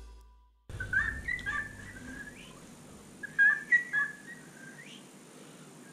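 Recorded music fades out, then a lutino cockatiel sings in short, chirpy whistled phrases, in two bursts.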